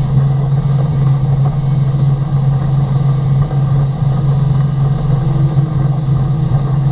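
Motorboat engine running steadily at speed, a constant low drone, over the rumbling rush of wind and water as the boat planes.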